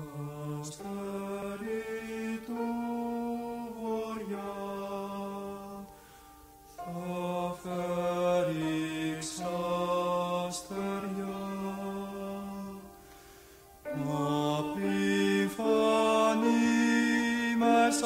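Male voice singing a slow, chant-like melody in long held notes: three phrases with short breaks between them, louder in the last phrase.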